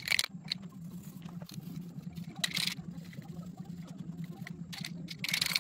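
Short hissing bursts of an aerosol spray-paint can, three of them a couple of seconds apart, over a steady low hum.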